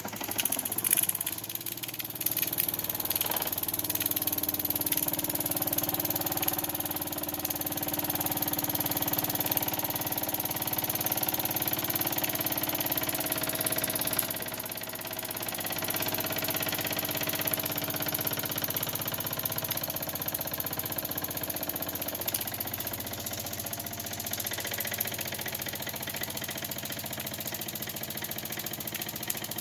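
Wilesco toy steam engine running steadily, its single cylinder giving a fast even chuffing over a hiss of steam. It is an old engine whose piston, the owner says, is worn.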